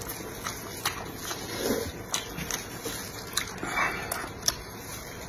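Oil sizzling steadily on a hot griddle pan, with sharp clicks of metal tongs picking up a pan-fried fertilized egg, and wet mouth sounds of biting and chewing.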